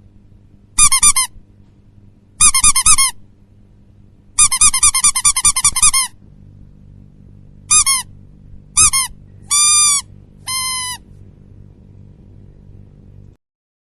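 Rubber duck squeeze toy squeaking: short squeaks in clusters, a fast run of about a dozen about four seconds in, then single squeaks and two longer drawn-out ones near the end. A faint low hum runs underneath and cuts off just before the end.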